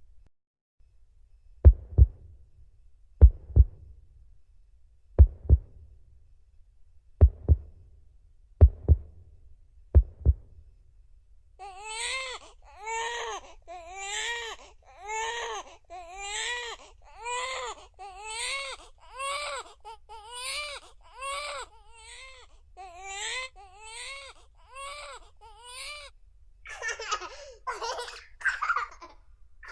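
Sampled sound effects from a Casio CT-X9000 keyboard: first a heartbeat, low thumps, some doubled, about every one and a half to two seconds; then, about twelve seconds in, a baby crying in a long run of regular rising-and-falling wails.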